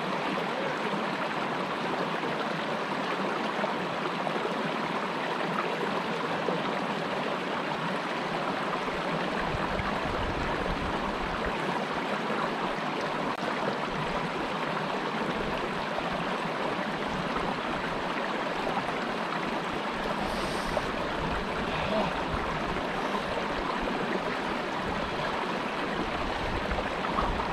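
Shallow creek water running over rocks, a steady, even rush.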